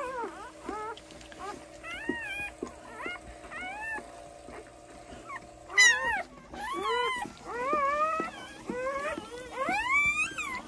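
Newborn puppies crying: repeated short high squeals that rise and fall in pitch, loudest a little past the middle, over a faint steady hum.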